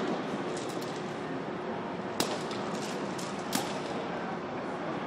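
Steady hiss of a large indoor hall with two sharp cracks, the louder about two seconds in and a second about a second later.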